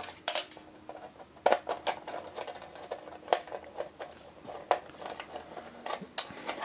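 Hand screwdriver undoing screws from an aluminium electronics case cover: scattered small metallic clicks and scrapes, a few each second at most.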